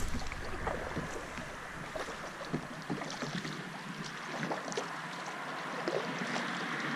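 Canoe paddle working calm river water: scattered small splashes and drips from the strokes.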